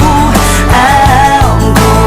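Background music: a song with a sung melody over bass and a steady beat.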